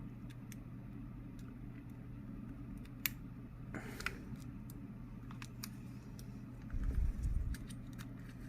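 Small metallic clicks and scrapes of repair tools working an iPhone 11's screen free of its factory adhesive, over a steady low hum. A dull low thump comes a little before seven seconds in.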